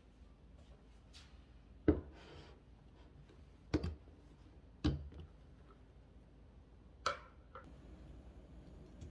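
Glass food-storage container with a snap-lock lid handled on a table: four sharp knocks and clicks a second or two apart as it is set down and the lid's latches are undone, with faint rubbing between them.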